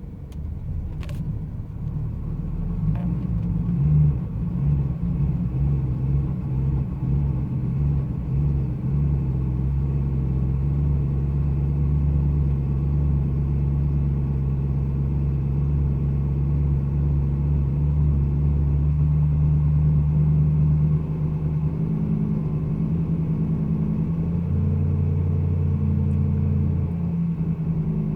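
BMW E92 M3's 4.0-litre V8 idling rough, the sign of an engine fault. The idle note shifts and changes pitch about three quarters of the way through and again a few seconds later.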